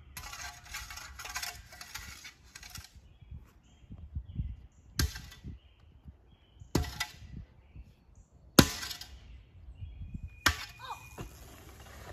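Shovel scraping and scooping dirt in a wheelbarrow, then four sharp knocks about two seconds apart as the shovel strikes the wheelbarrow, the third the loudest.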